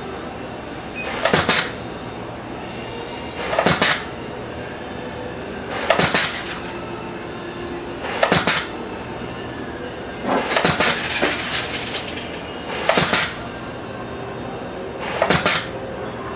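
A servo-controlled wire feed-and-cut machine cycling: a short mechanical burst from the roll feed and pneumatic cutter head about every two and a half seconds, seven times. Each burst is one cut-to-length cycle, separated by a programmed two-second pause. A low steady hum runs between the bursts.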